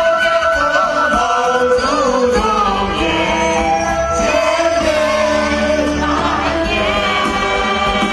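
Live concert music over stage loudspeakers, with a large group of performers singing long, wavering notes together.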